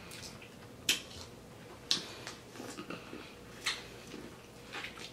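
Mouth noises of eating corn on the cob: a handful of short, sharp wet clicks and smacks as she bites and chews.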